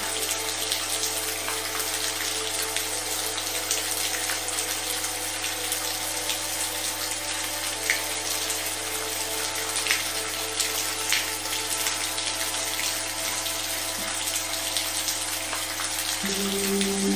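Recorded rain as a steady, even hiss with a few sharper drops, over a continuous low sustained tone. A soft held chord comes in near the end.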